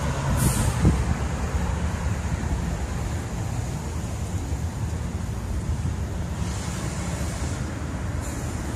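Steady outdoor street noise: a low traffic rumble with wind buffeting the phone's microphone.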